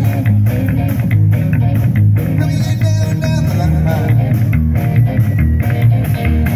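Live band playing rock-and-roll: upright bass notes driving the beat under guitar and drums.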